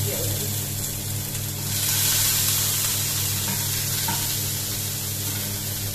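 Food sizzling as it fries in hot oil in a pan, growing louder about two seconds in.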